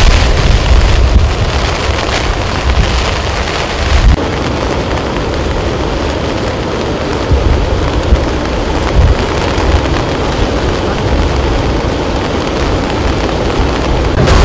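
Water rushing through a concrete dam's open spillway gates and crashing into the pool at its foot: a loud, steady rush of noise. A low rumble of wind on the microphone is heavy for the first few seconds, then eases.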